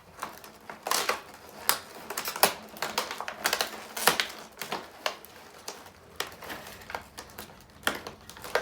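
Small hard plastic parts of a model train tree set clicking and knocking together as they are picked up and handled, in an irregular run of sharp taps.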